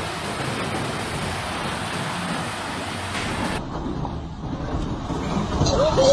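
Steady rushing noise of a heavy storm: pouring rain and floodwater. A little over halfway through it cuts abruptly to a duller recording of howling storm wind.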